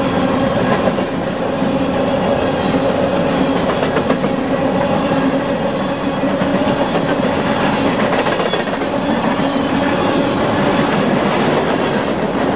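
Empty coal hopper cars of a freight train rolling past close by, a steady loud rumble and clatter of steel wheels over the rail joints.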